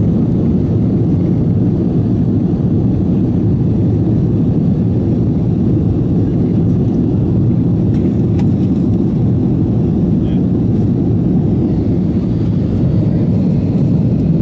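Steady cabin noise of an Airbus A330 airliner in its climb after takeoff: an even, deep rush of engine and airflow noise heard from inside the passenger cabin.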